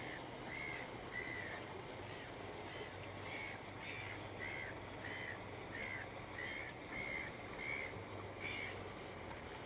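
A bird calling over and over, short arched calls at about one and a half a second, with a faint steady low hum underneath.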